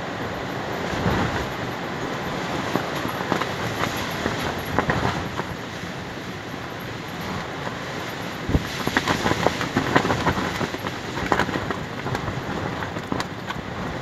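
Strong gusty wind whipping a large white fabric sheet, which flaps and snaps sharply, with wind rumbling on the microphone; the snapping comes thickest about nine to eleven seconds in.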